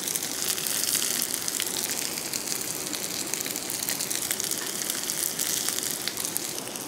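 Pathrode slices sizzling in hot coconut oil on a stone griddle: a steady hiss with fine crackles and pops as they roast.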